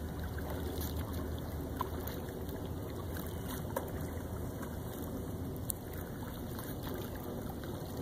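Steady outdoor background noise with a low rumble of wind on the microphone, broken by a few faint clicks.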